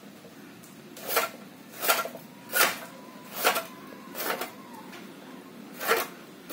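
Hand-lever vegetable cutter's high-carbon steel blade chopping through a bundle of carrots onto a cutting board: six sharp chops, the first five about every 0.7 s, then a short pause before the last.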